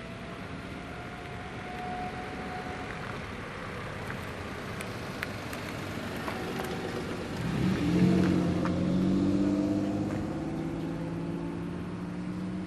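Diesel railcar engine: background noise and a few faint ticks, then about seven and a half seconds in the engine comes up loud, rising in pitch as it accelerates, and holds its note to the end.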